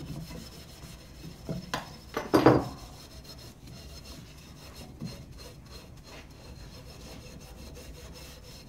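Coarse steel wool scrubbing back and forth along the rusty blade of an old drawknife, rubbing the rust off. A couple of sharp knocks come about two seconds in, the loudest sounds here.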